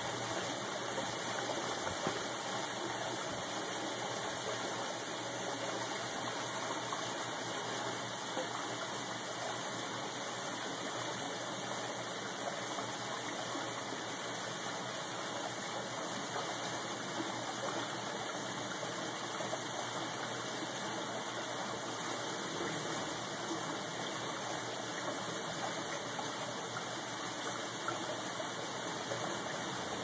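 Large fish tank's water circulation and rising air bubbles, a steady even rush of water.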